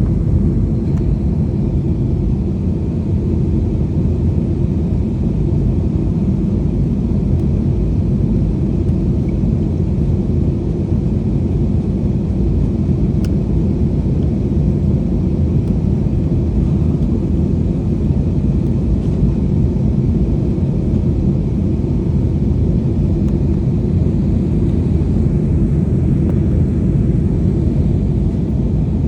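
Passenger airliner in flight heard from inside the cabin: a steady low rumble of engines and airflow.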